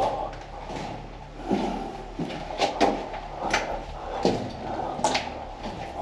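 Irregular knocks and scrapes in a small, echoing room.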